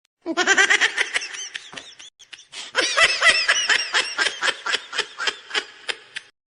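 Laughter sound effect: two bouts of rapid, high-pitched "ha-ha-ha" pulses, about five a second, the second bout longer and trailing off near the end.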